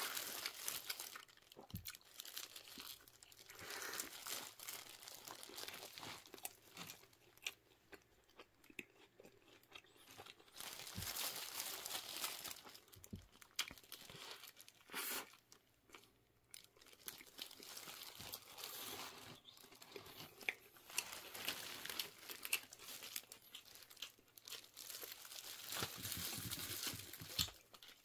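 Close-up eating sounds: crunchy tortilla chips being bitten and chewed, with paper wrapper crinkling as it is handled. The crunching comes in irregular spells with short quieter gaps between them.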